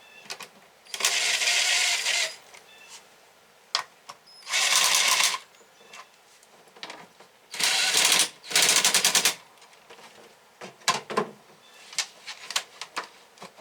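Impact wrench run in four short bursts of rapid hammering, spinning bolts out while a part is removed from the engine, followed by a few light metal clinks of parts and tools.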